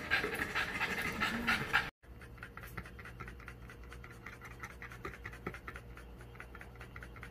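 French bulldog panting rapidly with its mouth open, a quick, even run of short breaths. It is loud and close for about two seconds, then after a brief break the panting carries on fainter.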